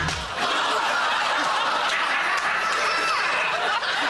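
A sudden bang or crash at the very start, then a studio audience laughing loudly without a break.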